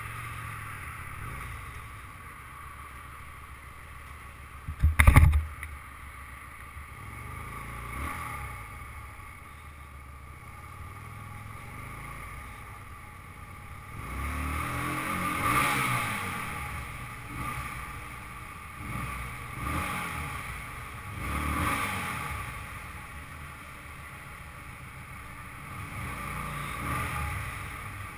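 Motorcycle engine running with wind rush on the microphone, and one sharp loud thump about five seconds in. Inside the multi-storey car park from about halfway, the engine is revved up and down in several swells.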